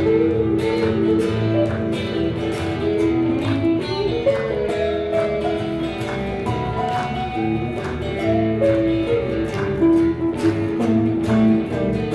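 A small live band playing a song: acoustic guitars over an electric bass guitar, heard through the camera's own microphone.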